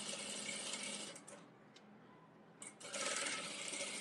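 Industrial sewing machine stitching a seam in short runs: it runs for about a second, stops for about a second and a half, then starts running again.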